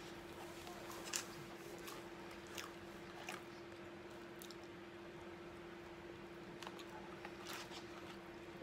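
Close-up chewing of a mouthful of chickpeas dressed with mayonnaise, with scattered short wet clicks and smacks, over a steady low hum.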